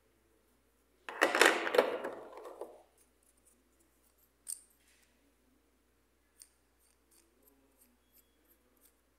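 Clear plastic blister packaging crackling loudly for about two seconds as a toy accessory is pulled from it, followed by a few faint scattered clicks of small plastic parts being handled.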